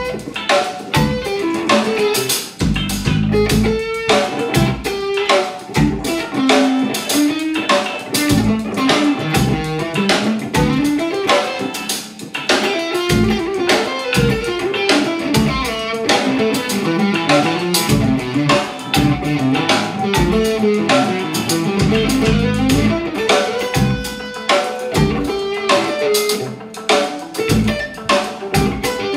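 1989 Fender Telecaster electric guitar playing jazz-fusion single-note lead lines over a drum backing.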